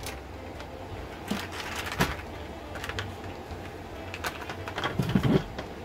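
Small scattered clicks and rustles of beads and jute twine being handled and threaded, busiest about five seconds in, over a low steady hum.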